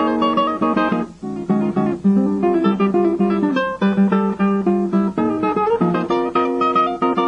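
Classical nylon-string guitar played solo: quick plucked notes and strummed chords, with a short break about a second in.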